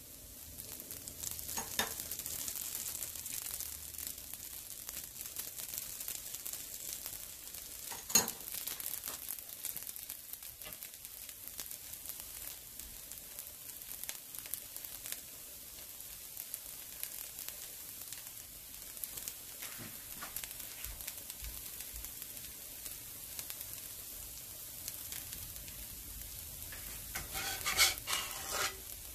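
Dosa sizzling in oil on a hot black pan, the sizzle starting as oil is drizzled from a spoon over it, with a few sharp metal clinks. Near the end a flat metal spatula scrapes under the dosa to lift it.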